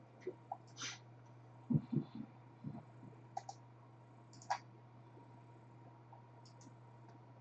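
Irregular computer mouse clicks and a few soft knocks from things moved on a desk, over a steady low electrical hum.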